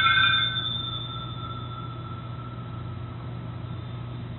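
A small altar bell struck once, ringing out in a few clear tones that fade over about three seconds. It marks the elevation of the chalice at the consecration. A steady low hum runs underneath.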